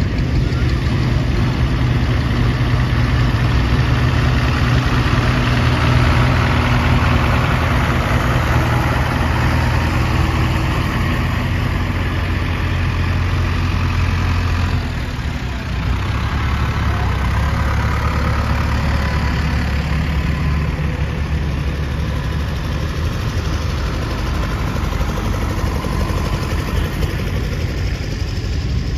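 Tractor engines running at low speed as tractors drive slowly past one after another; the engine note shifts lower about halfway through as a red Case International tractor goes by.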